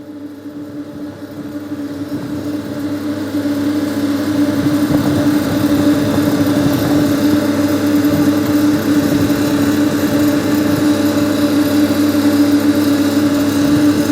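Engine of road-construction machinery running steadily with a droning hum, growing louder over the first few seconds and then holding level.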